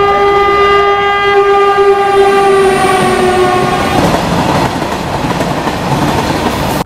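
A freight train passing through a station: the locomotive sounds one long steady horn note that fades out about halfway through, while the wagons' wheels rumble along the rails.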